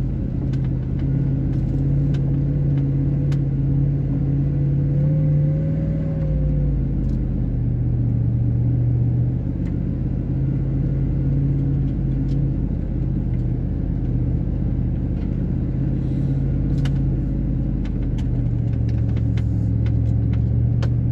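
A 4x4 vehicle's engine running steadily at low speed on a dirt trail. It gives a low hum whose pitch rises a little about five seconds in, then settles lower. Scattered light clicks and knocks come through from the rough ground.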